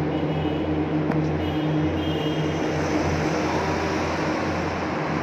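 Road traffic driving through a road tunnel, the engine and tyre noise echoing off the concrete walls into a steady, loud droning hum.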